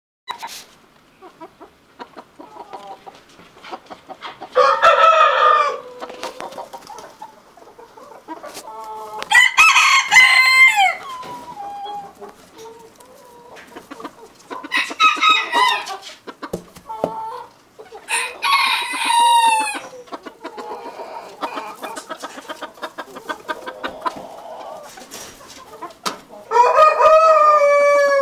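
Roosters crowing in turn, five long crows several seconds apart, with chickens clucking steadily in between.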